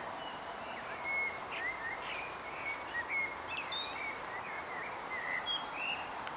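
Songbirds chirping, with many short, quick notes scattered throughout, over a steady background hiss of outdoor ambience.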